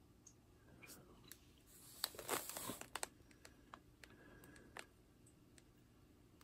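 Faint handling noise of a cardboard diecast model box held and turned in the hand: scattered small clicks and rustles, with a louder crinkling stretch about two seconds in.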